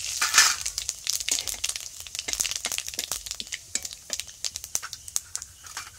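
Whole cumin seeds, bay leaves and dried red chillies crackling and popping in hot oil in an iron kadai as they are tempered, stirred with a metal spatula. A loud burst of sizzle just after the start, then a dense run of sharp pops that thins out near the end.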